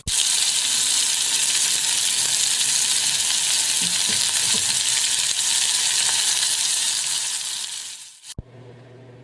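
Food sizzling in a hot frying pan: a loud, steady hiss that starts abruptly and fades out near the end.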